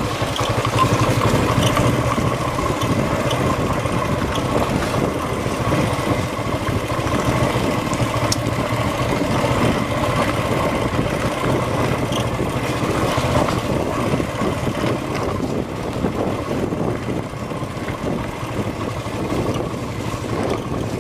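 TVS Apache RTR 180's single-cylinder four-stroke engine running steadily at low speed as the motorcycle rides over a rough dirt trail. It gets a little quieter in the second half.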